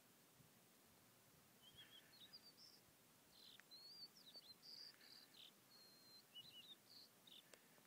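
Faint bird song: a small bird singing a run of short, high chirps and whistled notes, starting about a second and a half in and stopping just before the end.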